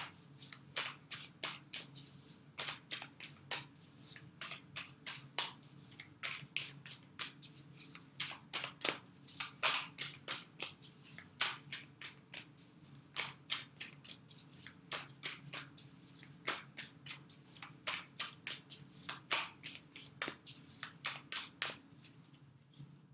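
A deck of tarot cards being shuffled overhand between the hands: a steady run of short papery card slaps, about three a second.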